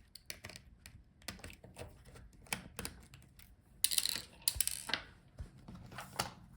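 Small sharp clicks and taps of a screwdriver working the touchpad screws out of a laptop palmrest and of the small metal and plastic parts being handled, with a louder scraping rustle about four seconds in.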